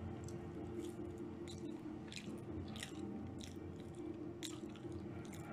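A person biting into food held in the hand and chewing it close to the microphone, with sharp, irregular crunching clicks about once or twice a second.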